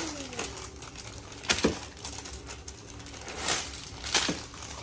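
Plastic ice-pop wrappers rustling and crinkling as they are handled, with sharp crackles about a second and a half in, again around three and a half seconds, and twice near the end.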